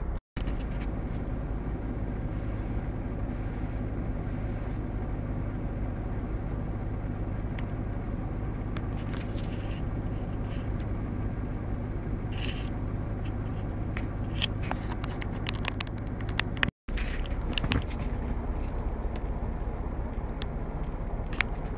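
Off-road 4x4 vehicle driving, with a steady low engine and drivetrain rumble and scattered knocks and rattles. Three short high beeps sound a few seconds in.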